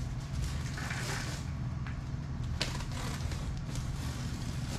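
Box cutter slicing the packing tape on a cardboard box, with scratchy rustling of the cardboard and a sharp click about two and a half seconds in, over a steady low hum.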